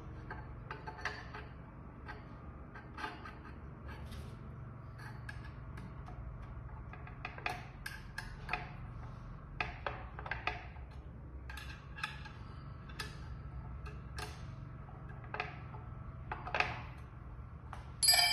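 Irregular small metal clicks and taps of aluminium bracket parts being handled and fitted together by hand, with a louder ringing metal clink near the end.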